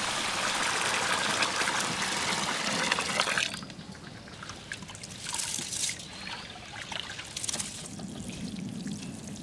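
Water poured in a heavy stream into a large aluminium pot of raw rice for washing, stopping abruptly a little over three seconds in. Then quieter trickling and splashing as the milky rinse water is poured off over the rim.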